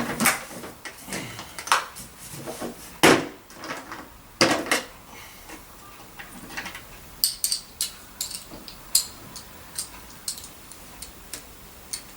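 Hand assembly of a vintage vacuum cleaner's handle: a screw being tightened with irregular metal clicks and knocks as parts are handled, two louder knocks a few seconds in, then lighter, sharper clicks.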